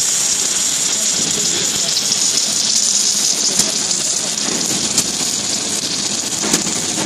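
Submerged arc welding head running along a seam under granular flux: a steady hiss with crackling, and a few sharp clicks.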